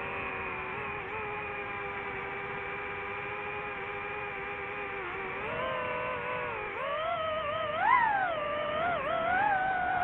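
DJI FPV drone's motors and propellers whining at a steady pitch, then rising and falling in pitch as the throttle changes, loudest with a sharp rise and fall about eight seconds in.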